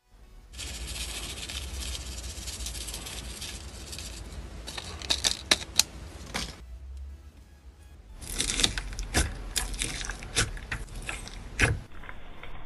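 Fingers pressing and kneading soft slime mixed with small clay cubes and plastic sequins, giving crisp crackles and clicks. The handling comes in two spells with a short lull between them.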